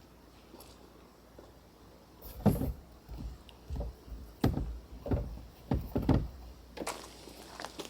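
A series of about seven dull thumps and knocks, irregularly spaced, starting about two seconds in.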